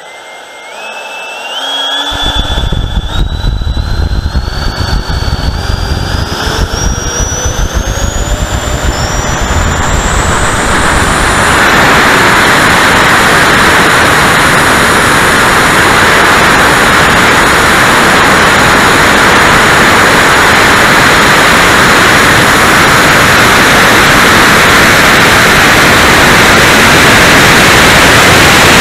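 Twin 70 mm electric ducted fans of an E-flite Su-30 model jet spooling up, their whine climbing in steps over about ten seconds under a low rumble, then a steady loud rush of fans and airflow at full power through takeoff and climb, heard from a camera mounted on the airframe.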